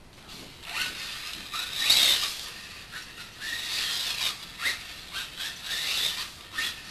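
Electric four-wheel-drive RC buggy with a 13.5 brushless motor driving on a concrete floor. The tyres and drivetrain make a hissing, scrubbing sound that swells and fades as it speeds up and turns, with short rising motor whines on each burst of throttle. The loudest pass is about two seconds in.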